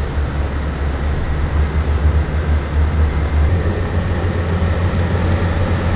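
Motorboat engine running underway with a steady low drone that shifts slightly about halfway through, under a rushing hiss of wind and water.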